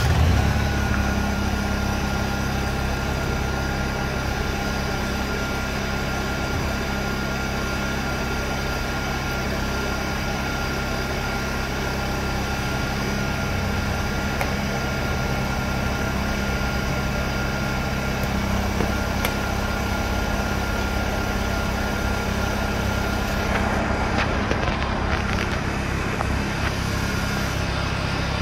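Honda EU10i inverter generator's 49 cc single-cylinder four-stroke engine (GXH50) catching on a pull of the starter rope and settling straight into a steady run.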